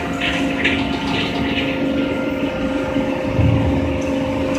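NCSK125_D CNC hydraulic punching machine running with a steady hydraulic hum. Short hissing bursts come in the first two seconds, and there is a low thud about three and a half seconds in.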